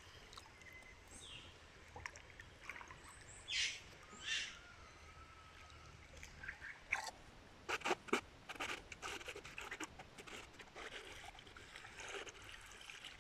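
Shallow river water trickling and lapping, with scattered splashes and knocks from a man swimming through it, mostly from about seven seconds in. Two brief high-pitched sounds come a little before and just after four seconds in.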